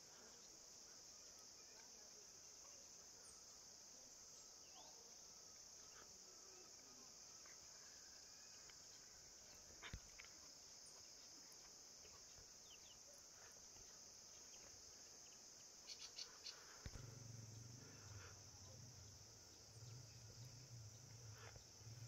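Faint, steady high-pitched insect chirring, typical of crickets in grass, with a few soft clicks. A low hum joins in about three-quarters of the way through.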